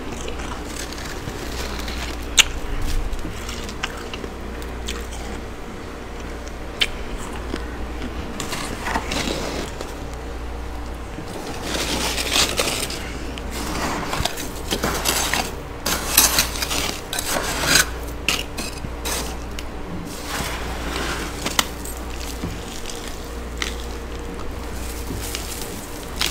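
Frost in a chest deep freezer being scraped and gathered up, crisp crunching and crackling in irregular bursts with scattered clicks, over a steady low hum.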